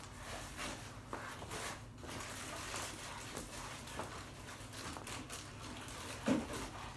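Gymnastics ribbon swishing through the air in faint, irregular whooshes as it is swung, with light foot movements and one louder thump a little after six seconds in.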